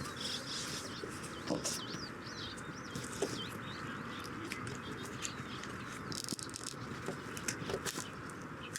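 A songbird singing a fast, looping, warbling phrase during the first three seconds or so, over steady outdoor background noise with a few scattered clicks.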